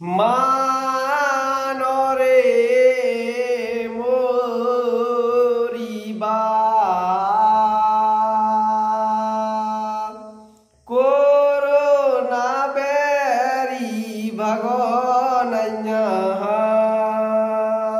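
A man singing a Bundeli folk song with no instruments heard, in long drawn-out, wavering notes. The first phrase ends about ten seconds in, and a second phrase begins after a short pause.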